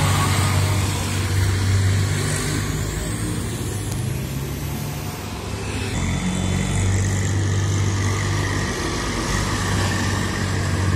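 Farm tractors' diesel engines running as they drive past one after another, a steady low engine note that swells and eases as each tractor passes.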